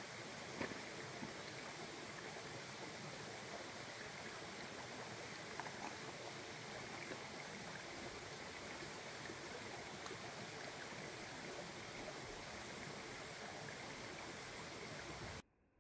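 Steady rush of a small mountain stream running over rocks, with a couple of faint clicks. It cuts off suddenly near the end.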